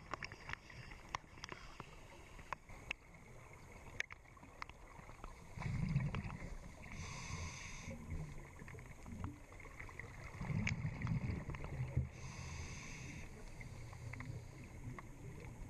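Scuba diver breathing through a regulator underwater: twice, a low bubbling rush of exhaled air followed by a hiss of inhalation. Scattered sharp clicks run throughout.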